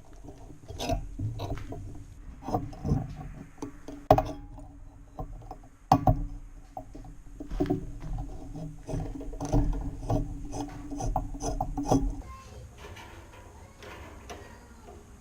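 Screws being backed out of a tiller's throttle control mount with a hand tool: repeated clicking and mechanical rattling that stops about twelve seconds in.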